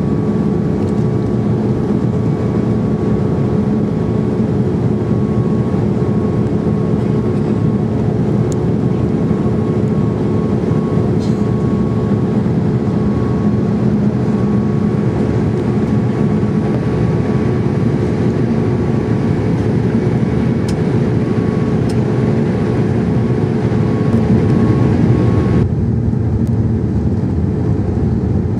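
Steady drone of engine and airflow noise inside the cabin of a Boeing 787-8 on approach with flaps extended, heard from a window seat behind the wing. The sound is mostly a low rumble, with faint steady tones running through it.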